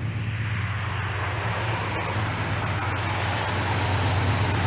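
Freight train passing close by: a steady low rumble under a broad rushing noise that slowly grows louder.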